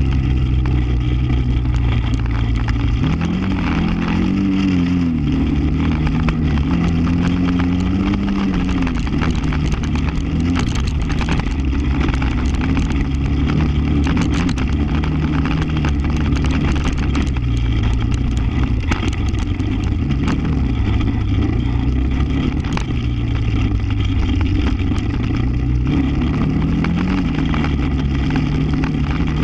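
ATV engine running while riding a dirt track, its pitch rising and falling over and over as the throttle opens and eases, over a heavy low rumble and scattered rattles.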